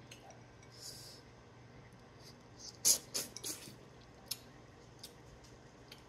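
Close-up eating sounds: wet lip smacks and finger-sucking while eating saucy boiled crab, with a short cluster of sharp smacks about three seconds in and a few single clicks after.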